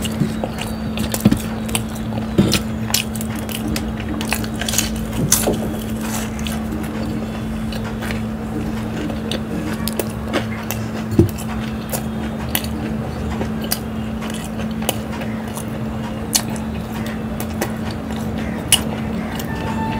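Close-miked eating sounds: samosa being bitten and chewed, with many short sharp clicks and crunches over a steady low hum.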